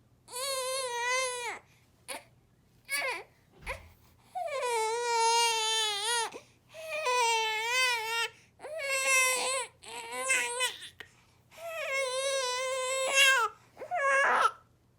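A four-month-old baby crying in a string of cries, most one to two seconds long, with short pauses for breath between them.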